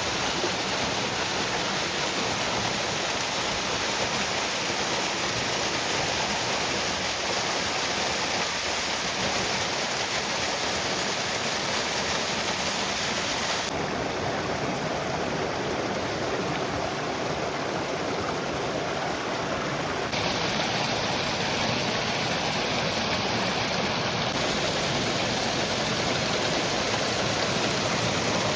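A waterfall's water rushing in a steady, continuous roar. About halfway through, the high hiss turns abruptly duller for several seconds, then returns.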